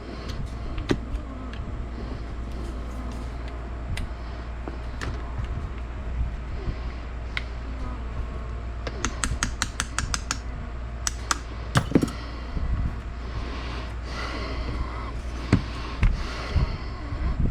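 Small metal clicks and clinks of AR rifle parts being handled during disassembly, with a quick run of about eight clicks about halfway through and a few sharper knocks soon after, over a steady low hum.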